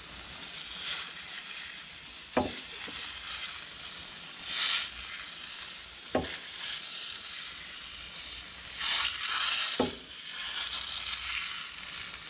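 Aerosol can of Nu-Calgon Evap Foam coil cleaner spraying onto an ATV radiator's fins in several hissing bursts of a second or two each. A few sharp clicks fall between the bursts.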